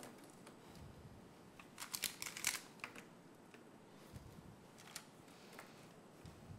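A quick run of light clicks and scrapes about two seconds in, then a few faint ticks: kitchen utensils and dishes being handled.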